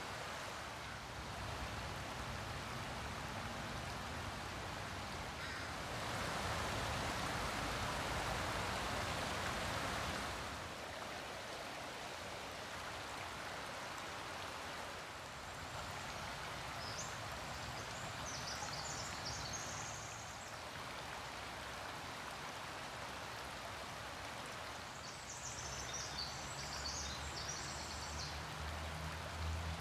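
Shallow forest creek trickling and washing over stones, a steady water sound that swells for a few seconds early on. A few short high chirps come twice in the second half.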